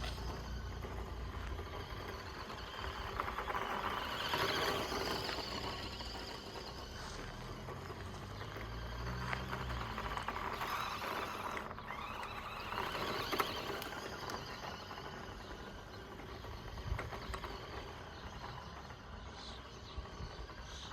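Scale RC car driving over loose dirt: tyres scrabbling and crunching on the ground with a motor whir, swelling louder a couple of times as the car comes close and fading again, with a few sharp knocks.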